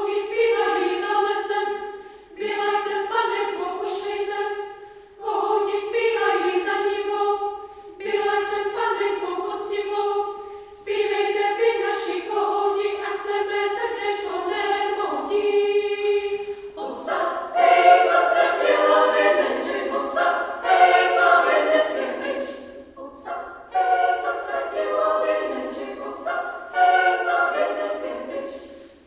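Women's choir singing a cappella in several parts: short phrases that break off every few seconds over a held lower note, then fuller and louder chords from a little past halfway.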